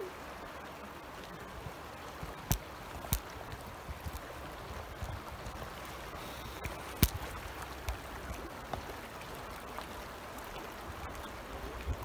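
Steady rushing of the Indus river's current. A few sharp clicks cut through it about two and a half, three and seven seconds in.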